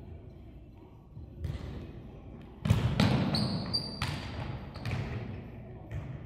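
Volleyball rally: sharp smacks of hands on the ball and ball thuds echoing around a hard-walled gym, the loudest a little under three seconds in, followed by a brief high squeak lasting under a second.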